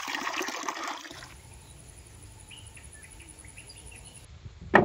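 Water splashing and trickling for about the first second, then quiet outdoor ambience with a few faint bird chirps and a steady high insect drone. A sharp knock comes near the end and is the loudest sound.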